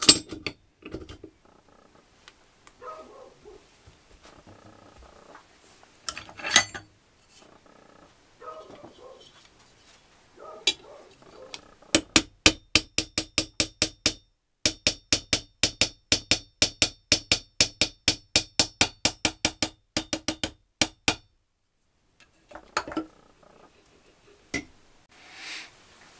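Hammer tapping on a flat metal bar held against a gearbox shaft and gear to drive them home in an Adler MB250 motorcycle engine's crankcase: a fast, even run of sharp metal taps, about four a second, for some nine seconds, with one short break after the first two seconds. Before the tapping come scattered clinks and clunks of parts being handled and fitted.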